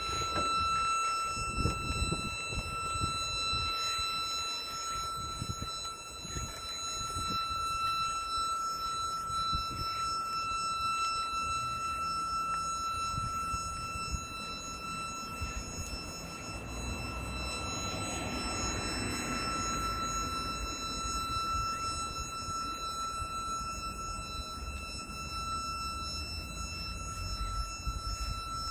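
Turbo Electric prototype vehicle's engine running at a fixed speed as the vehicle creeps along: a steady high whine that never changes pitch, over a low rumble.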